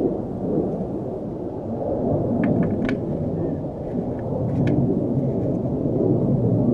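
Wind buffeting the microphone, a steady low rumble, with a few faint light clicks.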